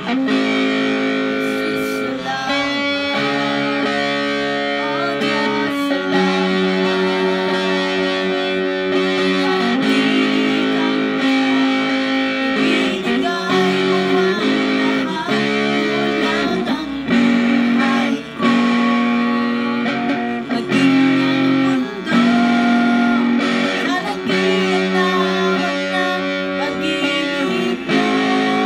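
A woman singing a worship song to a Stratocaster-style electric guitar, the guitar playing held chords and notes.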